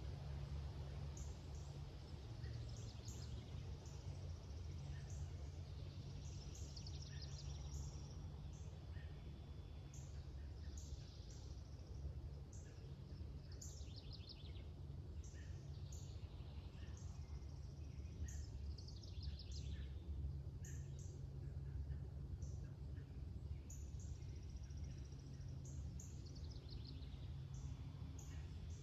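Songbirds singing in the woods: one bird repeats a quick series of notes falling in pitch every few seconds, among scattered short high chirps. A steady low rumble runs underneath.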